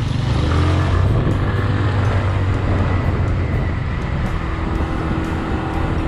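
Motorcycle riding along a street: a steady engine drone with wind and road noise, heard from a camera mounted on the rider.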